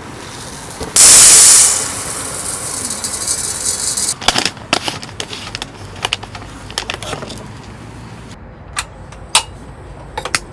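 Dry rice poured into a stainless steel pot: a loud hissing rattle of grains on metal for about three seconds, loudest at first. Then scattered clicks and taps as the plastic jar is capped, and a few sharp single clicks near the end.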